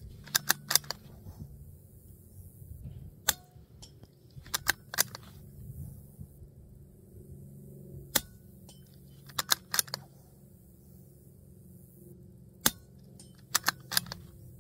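Suppressed .22 bolt-action rifle with an AB Suppressors AH6-Littlebird can, fired three times: each shot is a single sharp crack. About a second after each shot comes a quick cluster of metallic clicks as the bolt is worked to eject and chamber a round.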